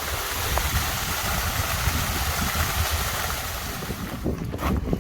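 Steady rush of stream water with wind buffeting the microphone. About four seconds in, the water hiss drops away, leaving gusty wind rumble.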